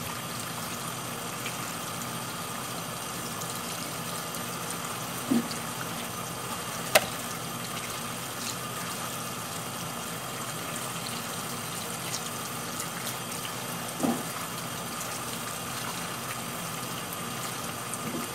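Kitchen tap running steadily, the water splashing onto small green citrus fruit being rubbed clean by hand. Three brief knocks stand out, the sharpest about seven seconds in.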